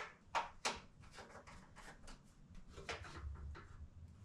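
Light clicks and knocks from hands working at an old Cutler-Hammer breaker panel and its breakers. There are two sharp clicks in the first second, then fainter, quicker clicking.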